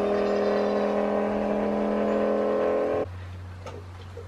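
Electric goat milker's vacuum pump running with a steady hum. About three seconds in the sound cuts off suddenly, leaving a quieter, lower hum.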